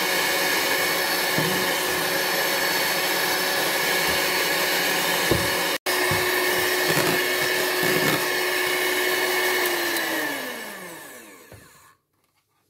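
Electric hand mixer running steadily as it whips egg whites and sugar to stiff peaks, with a few light knocks. It breaks off for an instant about six seconds in, then near the end it is switched off and its whine falls in pitch as the motor winds down to silence.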